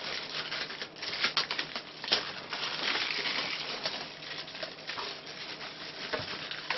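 Thin clear protective plastic film being peeled off an RC truck's body shell and crumpled in the hands: continuous crinkling and crackling with many small sharp clicks.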